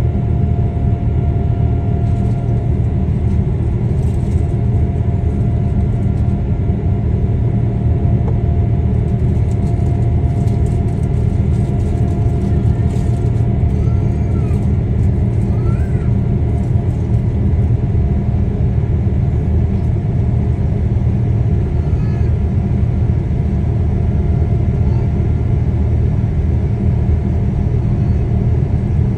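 Boeing 787 cabin noise during the climb after takeoff: a loud, steady low rumble of the engines and airflow, with a faint steady tone above it.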